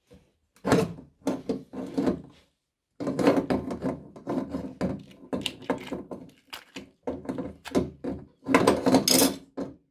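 Metal feed screw of a hand-cranked meat grinder being worked out of its barrel: scraping and knocking of metal on metal, in a few short bursts at first and then in a long run of close, rough scrapes.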